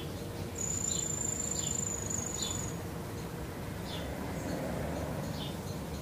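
Forest ambience: an insect trills on one steady high note for about two seconds, starting about half a second in, over short high chirps repeating every second or so and a low background rumble.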